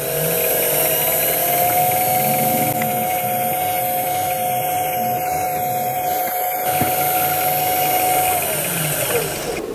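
Mini mill spindle motor running with a 15/64 in drill bit drilling a clearance hole in an aluminium block: a steady motor whine over the noise of the machine, and the whine falls away about eight and a half seconds in.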